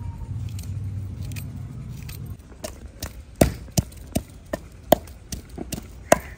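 Wooden pestle pounding garlic cloves in a wooden mortar: a run of sharp, uneven knocks, about three a second, beginning a couple of seconds in. Before the knocks, a low steady rumble.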